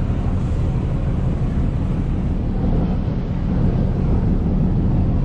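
Steady low rumble of a boat engine running, with wind buffeting the microphone.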